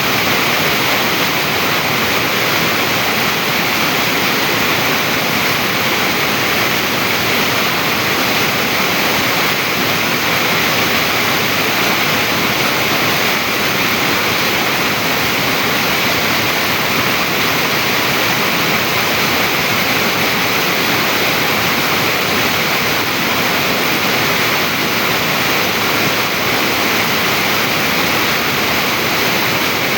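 Stream water rushing over rocks, a steady, unbroken splashing hiss.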